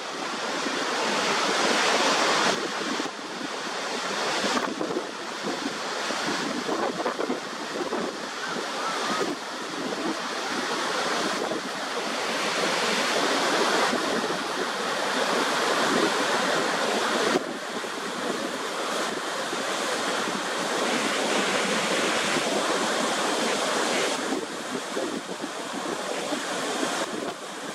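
Niagara Falls: a dense, steady rush of heavy water pouring over the brink into the gorge. The tone changes suddenly several times.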